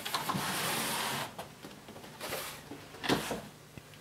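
Cardboard scraping and rubbing as a packing insert is worked loose from a large box: a steady scrape for just over a second, then two brief rustles.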